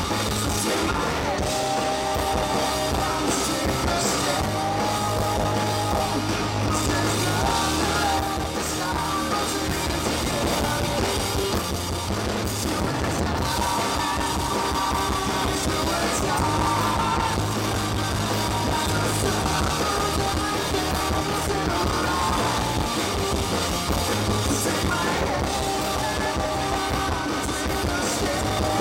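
Live rock band playing: a male lead singer holding long sung notes over electric guitars and a drum kit, heard from the audience.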